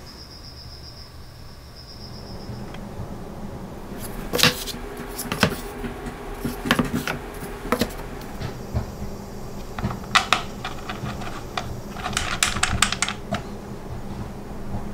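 Handling sounds of an electric hand planer and its parts: sharp clicks and knocks as the switched-off planer is set on wooden blocks, then a quick run of small clinks and clicks as a metal bracket is fitted with a screw, over a low steady hum.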